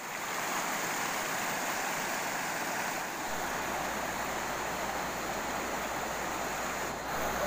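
Swift river water rushing steadily over rocky shallows and rapids. A low rumble joins the flow about three seconds in.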